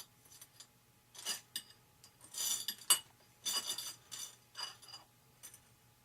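Small metal parts clinking and rattling as they are picked through by hand: a run of short clinks, the sharpest about three seconds in.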